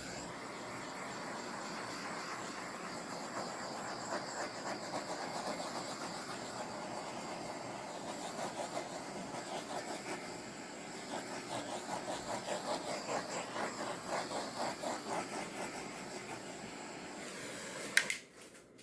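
Handheld torch flame hissing steadily with a fluttering rush as it is passed over wet acrylic pour paint to pop the bubbles, ending with a sharp click as it is shut off near the end.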